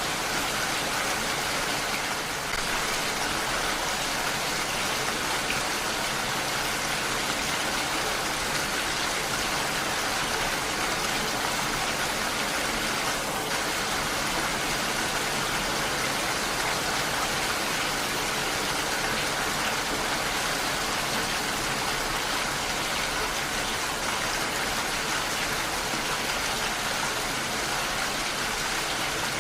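Heavy rain falling steadily, a dense even hiss of drops without let-up.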